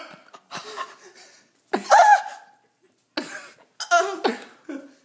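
Several short bursts of a person's voice, laughing and coughing, with pauses between them; the loudest is a drawn-out, pitched burst about two seconds in.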